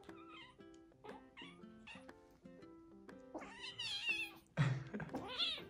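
Grey-and-white kitten crying out twice in the second half, two loud wavering cries in quick succession, as it is pinned and pawed by a larger orange cat in rough play. Background music with short, evenly struck notes runs under it.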